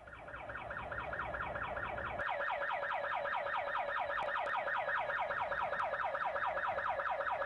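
Electronic warbling alarm tone, a fast run of falling chirps repeating several times a second, fading in at first and then holding steady.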